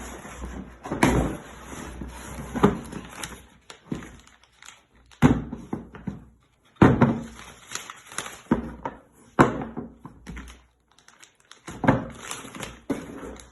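Engine rebuild kit parts and their packaging being handled and set down: irregular knocks and thuds, a few seconds apart, with rustling between them.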